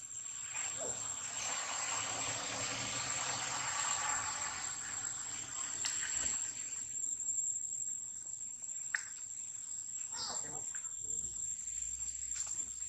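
Steady high-pitched insect drone, with a louder hissing chorus through the first half and a few brief chirps about nine and ten seconds in.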